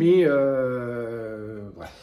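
A long, drawn-out vocal groan: one held voiced note sliding slightly down in pitch for about a second and a half, then cutting off.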